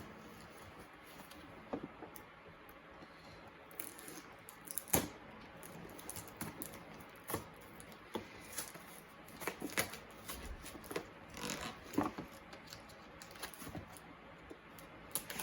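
A box being worked open by hand: irregular clicks, taps and short scraping rustles, growing busier after a few seconds.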